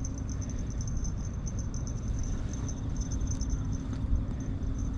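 Outdoor waterside background: a low, uneven rumble of wind and water with a fast, high-pitched ticking running over it.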